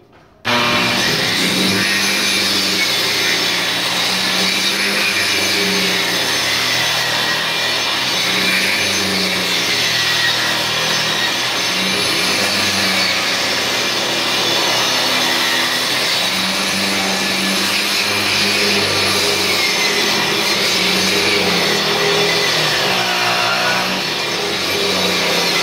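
Angle grinder with a diamond blade grinding thinset mortar off the floor, starting about half a second in and running steadily, its whine wavering up and down as the blade bears down and eases off.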